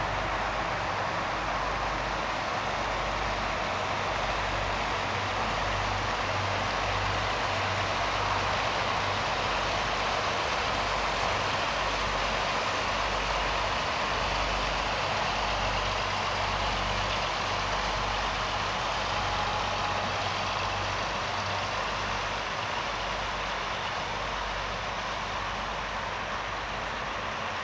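Diesel engine of an inland motor cargo barge running as the vessel passes along the canal: a steady low rumble that waxes and wanes slightly, under a continuous rushing noise.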